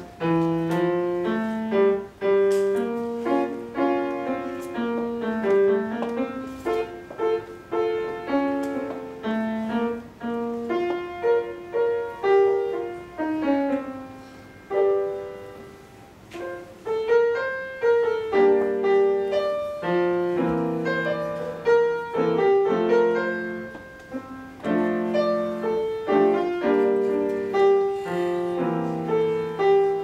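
Solo grand piano played live: a flowing piece of quick melodic lines over chords. The playing thins and softens about halfway through, then picks up again with fuller, louder chords.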